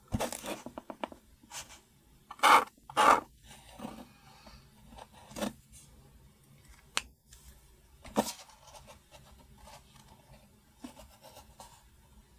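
Felt-tip metallic marker pens scratching short strokes onto a cardboard box, with pens and caps being handled in between. The loudest scrapes come about two and a half and three seconds in.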